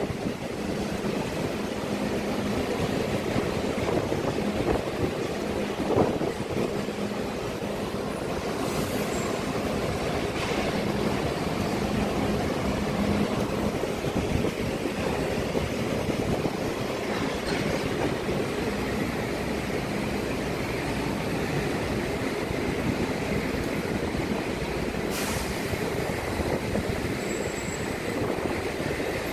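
Steady mechanical rumble of port and ship machinery while a container gantry crane hoists a heavy load, with a low steady hum through the first half and a single knock about six seconds in.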